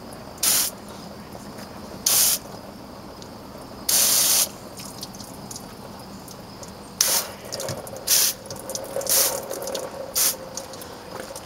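Garden hose spray nozzle squeezed in seven short bursts of water hissing onto an engine block to rinse off degreaser, the third burst, about four seconds in, the longest at about half a second.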